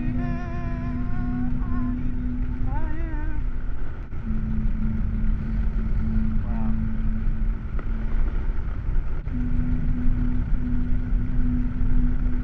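Motorcycle cruising at highway speed, heard through a helmet-mounted microphone: heavy wind rush with the Triumph Street Scrambler's engine running at a steady note that drops out briefly twice. A voice calls out briefly in the first few seconds.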